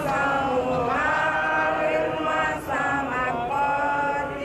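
Several voices singing together in a chant-like melody, holding notes and gliding between them.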